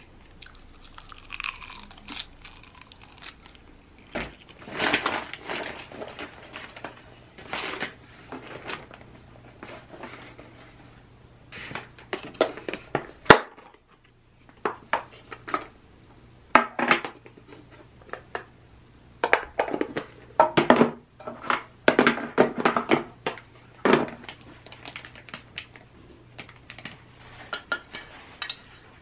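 Crumpled newspaper packing paper crinkling and rustling in irregular bursts as items are unwrapped and handled, with occasional light clicks and knocks of a lidded lunchbox and a small wooden box being handled.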